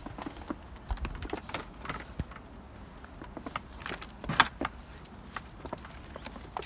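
Irregular crunching and clicking footsteps in snow, with one louder, sharp metallic-sounding rattle about four and a half seconds in.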